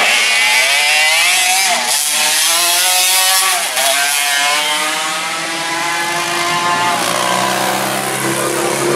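Racing sidecar outfits' engines at high revs as they pass. The engine note dips and climbs again twice. Near the end another outfit comes in with a rising engine note.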